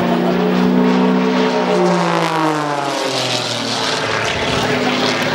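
Single-engine aerobatic propeller plane with a display smoke system flying low past overhead. Its engine note drops in pitch about halfway through as it goes by.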